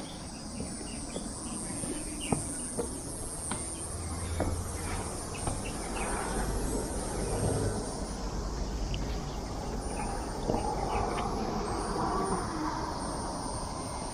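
Insects shrilling steadily in a high-pitched chorus, fading in the middle and picking up again near the end, over a low rumble.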